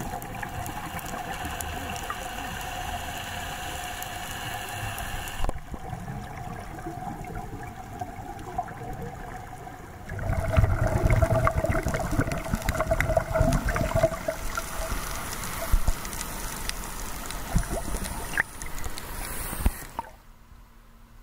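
Muffled underwater sound of scuba diving: a steady hum with hiss, then from about halfway loud gurgling surges of scuba exhaust bubbles. The sound drops off abruptly near the end.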